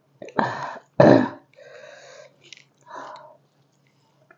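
A woman's throaty mouth and throat sounds while eating: two loud, low bursts about half a second apart near the start, then softer ones.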